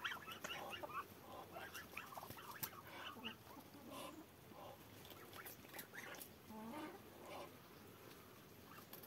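Muscovy ducks and a hen feeding on cucumber pieces: faint, short, soft bird calls mixed with irregular clicks of beaks pecking at the food.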